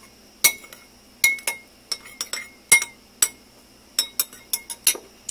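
A utensil clinking repeatedly against a bowl while stirring tomato sauce and ketchup together, irregular sharp clinks a few times a second.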